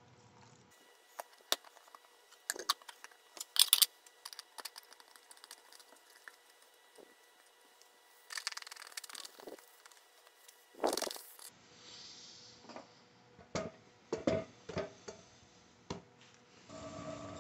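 Workbench handling sounds: scattered sharp clicks, taps and knocks of small hard parts and tools, with brief scrapes and rustles and one louder scraping rush partway through. A steady hum with a few tones begins just before the end.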